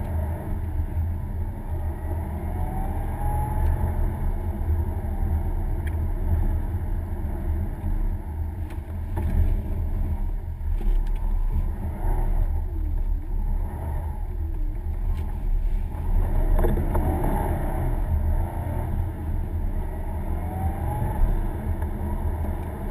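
Car engine and tyre noise heard inside the cabin while driving: a steady low drone, with the engine pitch rising and falling a few times as the car speeds up and eases off.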